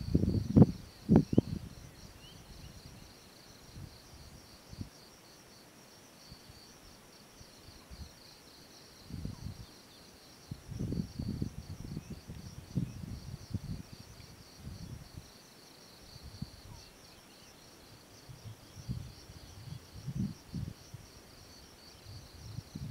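Insects chirring steadily in a high, pulsing trill. Low rumbles and thuds come and go over it, loudest about a second in and again after about ten seconds.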